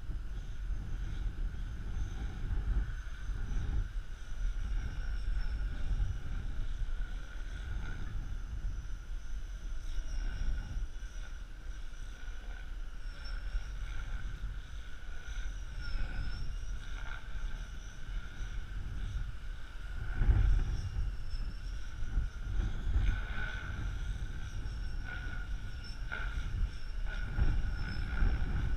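Wind buffeting the microphone in uneven gusts, strongest about two-thirds of the way through, over a faint steady high whine.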